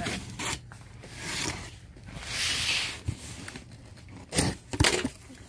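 Box cutter slicing through the packing tape along the top seam of a cardboard box: two drawn-out cuts, the second longer, with a few sharp knocks from handling the box near the end.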